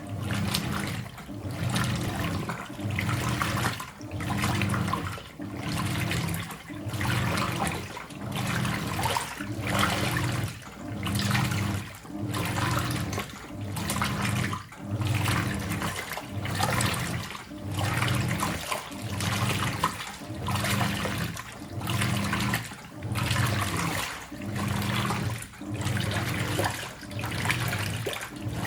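Hoover 800RL top-loading washing machine agitating in its deep rinse: the motor hum cuts in and out about once a second with each quick agitator stroke, with very little pause between strokes, and the water sloshes with every stroke.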